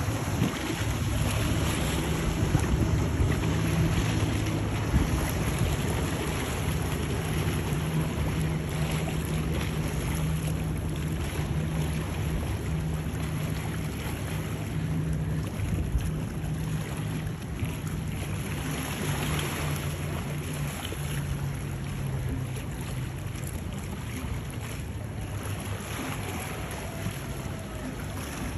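Twin outboard motors of a Grady-White center-console boat running at speed, a steady low drone that slowly fades as the boat moves away. Wind buffets the microphone and water rushes underneath.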